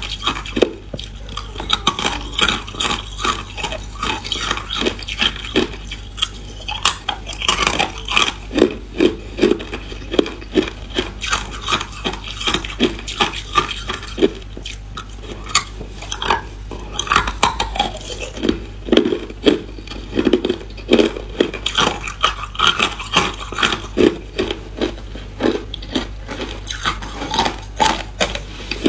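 Hard ice cubes being bitten and chewed: a fast run of sharp cracks and crunches, several a second.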